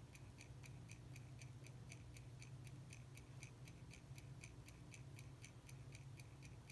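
Faint, fast, even ticking of a mechanical watch, about five ticks a second, the beat of an 18,000-beats-per-hour balance and escapement, over a low steady hum.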